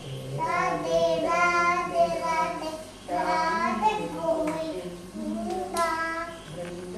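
A young girl singing a prayer chant in three phrases of held, slightly wavering notes with short breaks between them.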